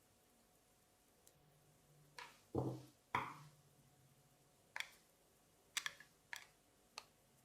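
Sharp clicks and taps of small reel parts and tools being handled and set down on a work surface during disassembly of a fishing reel. About eight irregular taps, the loudest two and a half and three seconds in.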